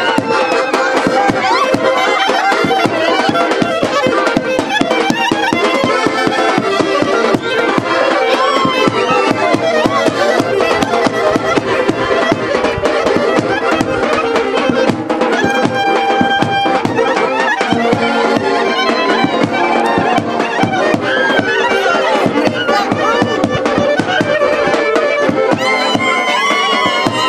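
Traditional Balkan dance music: a melody full of quick sliding ornaments over a held drone-like note and a dense, steady beat.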